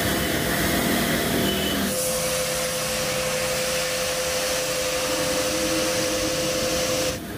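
Steady machine noise from a running motor: a hiss with a steady whine. About two seconds in the low rumble drops away, and near the end the sound cuts off suddenly.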